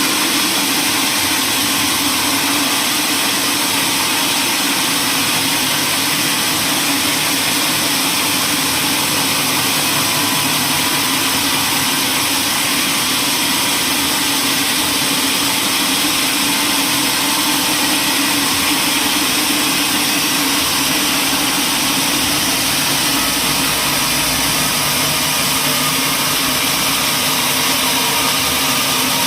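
Sawmill machinery running with a steady, unbroken mechanical drone. No separate cuts or knocks stand out.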